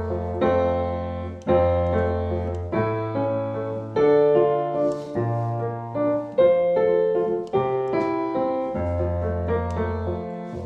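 Solo piano playing the closing bars of a song: a run of struck chords over low bass notes, each ringing and fading, ending on a last chord that dies away near the end.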